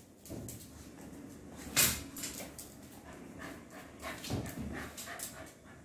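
A pet dog making short, irregular sounds close to the microphone, with one sharper, louder noise about two seconds in.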